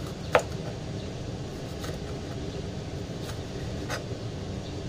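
Kitchen knife cutting a red bell pepper on a plastic cutting board: one sharp knock about a third of a second in, then three fainter taps, over a steady low hum.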